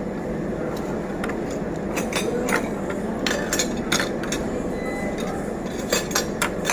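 Cutlery clinking against plates and dishes: a series of sharp, irregular clinks, starting about two seconds in, over the steady murmur of a restaurant dining room.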